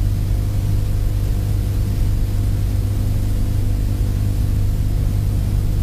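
Steady low electrical hum with a faint hiss over it: the background noise of the recording itself, with no speech or music.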